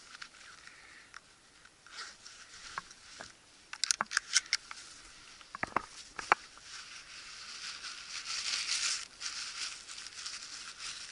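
Footsteps pushing through dry grass and brush, the brittle stalks rustling and crackling. A quick run of sharp snaps comes about four seconds in and again about six seconds in, with a louder stretch of rustling around eight to nine seconds.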